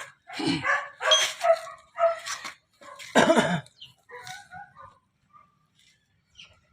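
A dog barking repeatedly, about six barks in the first three and a half seconds, then a few softer ones.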